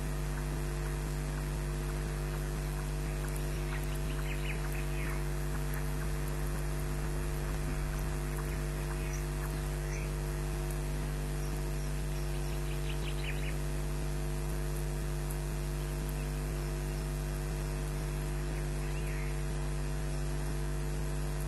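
Steady electrical mains hum with hiss from an osprey nest camera's sound feed. A few faint, short, high chirps come now and then, which the uploader labels as noise from the egg under the incubating osprey.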